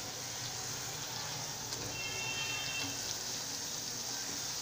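Besan-battered raw banana fritters deep-frying in hot oil in a kadhai: a steady sizzle, with a couple of faint clicks.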